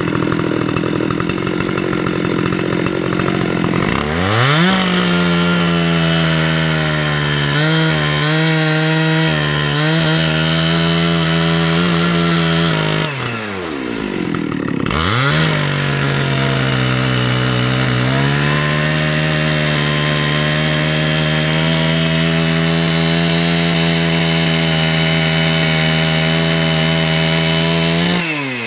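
Husqvarna 372 XP two-stroke chainsaw at full throttle, ripping an eastern red cedar log lengthwise on an Alaskan chainsaw mill. About four seconds in it revs up to a steady high pitch. Near the middle it drops back for a second or two and then revs up again, and it eases off at the very end.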